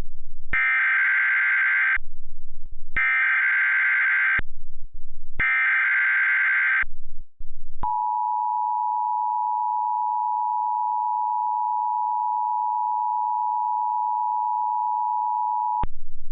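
Emergency Alert System tones: three screeching bursts of SAME header data, each about a second and a half long with a short gap between them. Then the EAS attention signal, a steady two-tone alarm held for about eight seconds.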